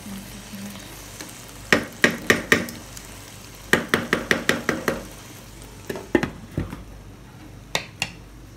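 Wooden spatula stirring thick simmering jollof rice in a non-stick pan, knocking against the pan in quick runs of sharp taps over a low steady sizzle of the bubbling sauce.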